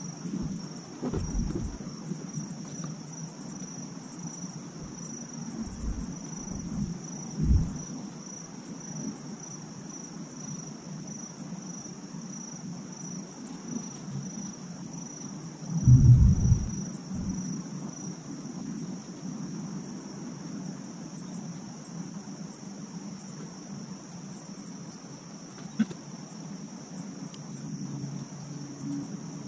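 Insects chirring in a steady, high, pulsing trill that grows fainter after about two-thirds of the way through. Low rumbles come and go over it, the loudest about halfway, and there is one sharp click near the end.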